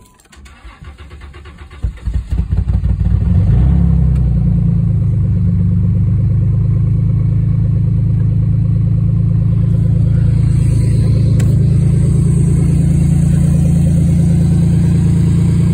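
2002 Chrysler Concorde's 3.5-litre V6 cranking on the starter, catching about two seconds in and rising to a steady idle by about four seconds in: a cold start after sitting about eight months.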